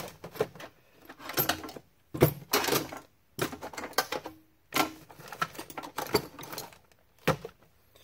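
Hand tools clattering and clinking in short bursts about once a second while someone rummages through them for a thin flat screwdriver.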